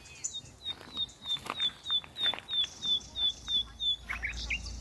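A bird calling a rapid series of about a dozen short, high, slightly falling notes, about three a second, followed by a few lower chirps near the end.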